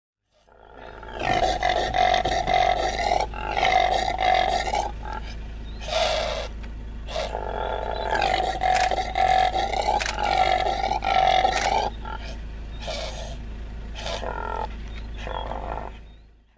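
Common impala calling: an irregular series of loud, pitched calls with short breaks between them, over a steady low hum, fading in at the start and out at the end.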